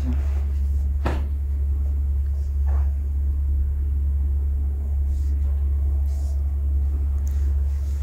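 A steady low hum, with a sharp click about a second in and a softer one a couple of seconds later, while hands set a patient's head and neck for a neck adjustment. The attempt brings no joint release, which the practitioner sums up as 'niente'.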